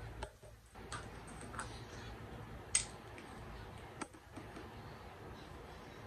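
Several light, sharp clicks and taps over faint room noise, the loudest a little under three seconds in.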